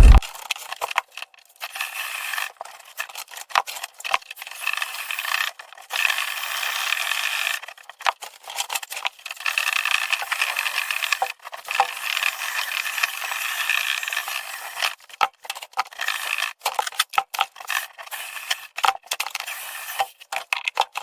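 Rattling and scraping of dryer vent duct cleaning, in short cut-together stretches with brief gaps between them. The sound is thin, with no low end.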